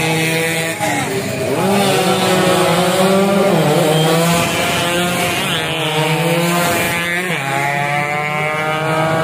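Several two-stroke racing underbone motorcycles at full throttle passing close by. Their high, raspy revs climb and drop sharply again and again at gear changes, with more than one bike heard at once.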